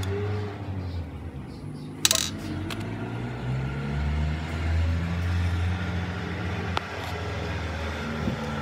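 Metal tool working on the aluminium crankcase of a Honda Vario 150 engine being cleaned, with a sharp ringing metallic clink about two seconds in and a smaller click later. A steady low engine hum runs underneath.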